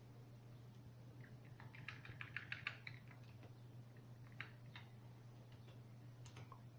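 Faint computer keyboard key presses: a quick run of about eight presses around two to three seconds in, then a few single presses, over a steady low hum.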